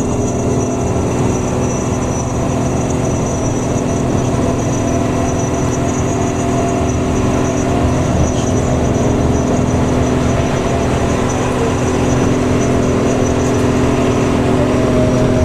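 Bus engine and exhaust running with a steady, even drone that holds its pitch throughout, as at a constant cruising speed.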